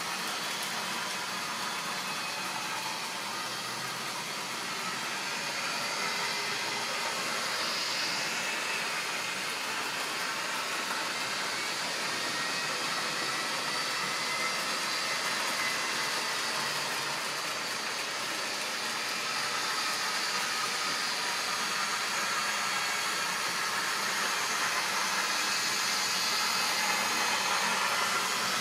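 Model railway trains running on track: a steady whirring from the small electric locomotive motors and the running of wagon wheels on the rails, with a faint high whine that drifts slightly in pitch.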